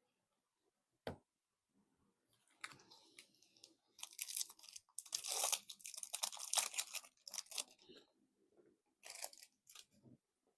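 The foil wrapper of a Magic: The Gathering collector booster pack being torn open and crinkled. A single click about a second in, then crackling that builds to a dense, loud stretch from about four to seven and a half seconds in, with one more short burst near the end.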